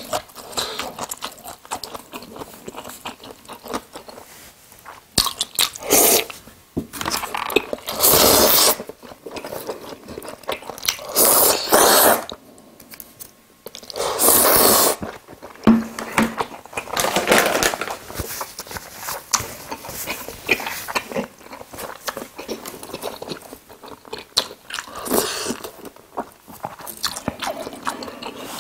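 Close-miked eating of jajangmyeon: several loud slurps of the noodles, each lasting about a second, with chewing between them.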